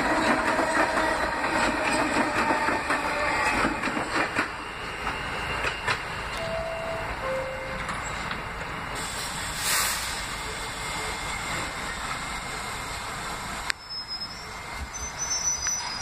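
Subway train rattling past on the adjacent track, wheels clacking over rail joints, fading after about four seconds. Then the steadier rumble of a standing R68-series subway train, a short burst of air hiss about ten seconds in, and faint high wheel squeal near the end.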